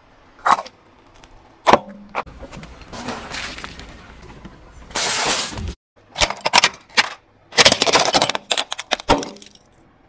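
Hard plastic objects crushed under a slowly rolling car tyre: a couple of sharp cracks and a stretch of crunching, then a rapid run of cracks and snaps as a small plastic toy alarm clock shatters.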